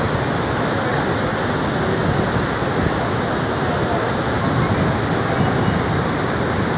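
Loud, steady rush of water pouring through the four open spillway gates of the Bhadra Dam and down the spillway face.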